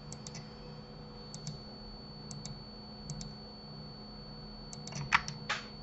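Computer mouse clicking in quick press-and-release pairs, several times, as faces of a 3D mesh are selected one by one; a few louder clicks come close together near the end.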